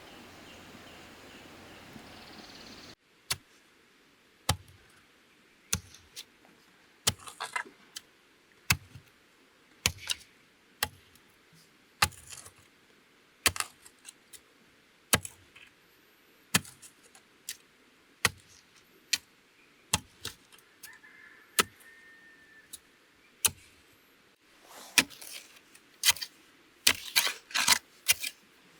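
Sharp knocks of hand-tool work on bamboo, spaced about one every second and a half, then coming faster in quick clusters near the end. A steady hiss in the first few seconds cuts off suddenly.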